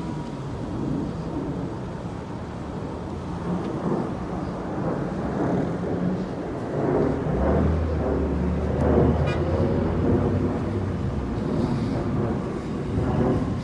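City street traffic: steady road noise, with a vehicle engine rumbling louder close by through the middle stretch and a brief high chirp about nine seconds in.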